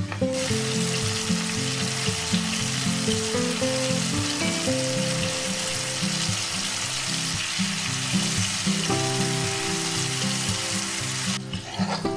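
Food sizzling as it fries, a dense steady crackle that starts just after the opening and cuts off sharply about a second before the end, over light background guitar music.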